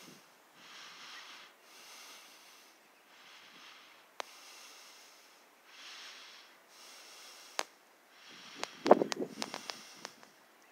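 Soft breathing close to a handheld phone's microphone, swelling in and out about every second and a half. There are a few sharp clicks, and a louder burst of handling rustle and clicks about nine seconds in.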